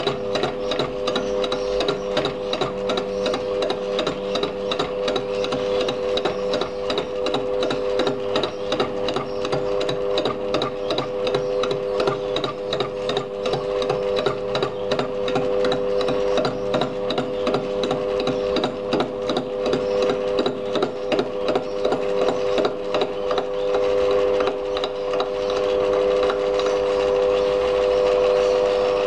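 Lathe fly-cutting the end of a cast iron steam-engine cylinder: the single-point fly cutter strikes the iron in a regular rapid ticking, several times a second, over a steady machine whine. Near the end the strikes fade, the steady sound grows louder, and lorikeets can be heard chattering outside.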